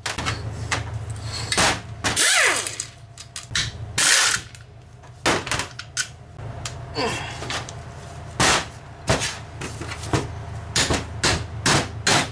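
Impact wrench firing in three short rattling bursts as it runs out the oil pan bolts of a small lawn mower engine, one ending in a falling whine as the tool spins down. After that comes a string of sharp knocks and taps of tools against the engine, over a steady low hum.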